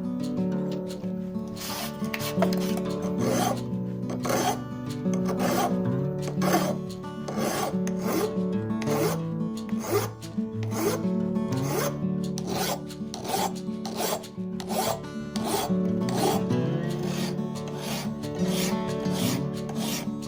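Hand strokes scraping back and forth on the cast body of a small vise, about two strokes a second, as the casting marks are worked off. Background music with steady chords plays underneath.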